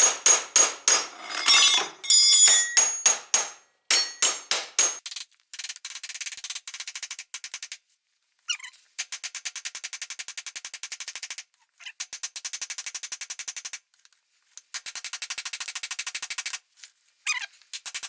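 Metal hammer blows on the Honda 300EX's steel rear hub to drive it off the axle, each strike ringing. Heavy blows come about three a second for the first five seconds, then bursts of rapid, evenly spaced strikes with short pauses between.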